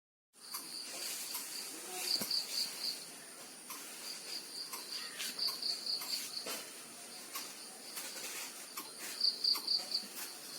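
Insects, crickets by the sound of it, chirring steadily in a high trill, with louder runs of rapid pulsed chirps coming three times.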